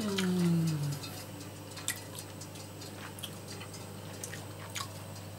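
A man's appreciative "mmm", falling in pitch, in the first second, then scattered soft clicks of chewing and lip-smacking as he eats tender roast meat.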